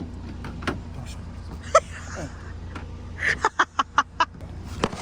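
Car idling with a steady low rumble heard from inside the cabin, with a sharp click near two seconds in and a quick run of about six clicks and knocks later on, as the car door's locks and latch are worked.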